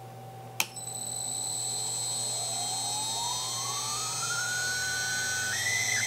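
2.2 kW water-cooled CNC router spindle starting with a sharp click, then spinning up: a whine rising steadily in pitch, with high steady tones above it, stepping up once more near the end. The owner suspects this spindle has bad bearings.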